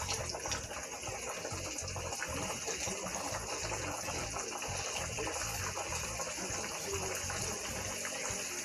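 Chicken deep-frying in a large pot of hot oil: steady sizzling and bubbling.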